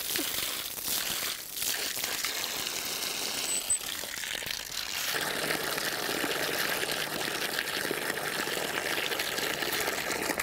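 Water pouring from the spout of a hand-operated water pump and splashing as a sponge and a wooden spoon are rinsed under the stream. About five seconds in, the splashing grows fuller and deeper.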